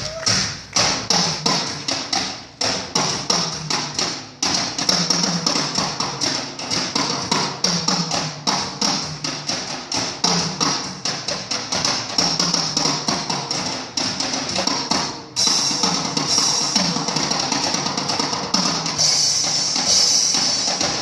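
Fast, dense drum solo on a set of small drums and cymbals. The cymbals ring more steadily in the last third, and a low note comes back about every second and a half underneath.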